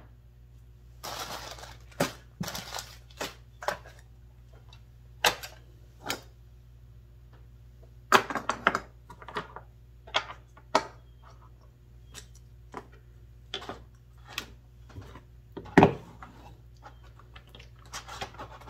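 Hand tools being handled and set down on a work surface: irregular clinks, clicks and knocks with a few brief rustles, the loudest knock coming about three-quarters of the way through.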